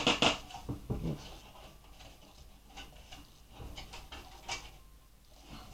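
Light clicks and clatter of a PC case's loose screws being handled: several quick knocks in the first second, then a few isolated fainter clicks.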